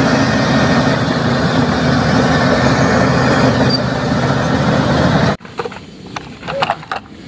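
Heavy engine running at a steady pace for a bulldozer. It is loud and even, then cuts off abruptly about five seconds in, followed by light clicks and knocks of hard plastic toys being handled.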